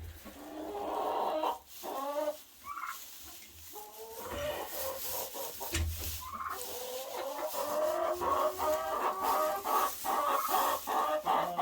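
Domestic hens clucking, a few separate calls at first and then a near-continuous run of rapid clucks from about four seconds in, with a brief knock about six seconds in.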